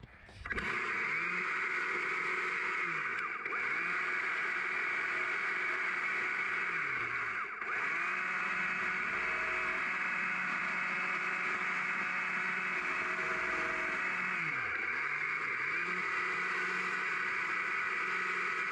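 Stihl MSA 200 C battery-powered chainsaw running with a steady, even whine as its chain carves small cuts into a little log. It starts about half a second in and briefly eases off twice.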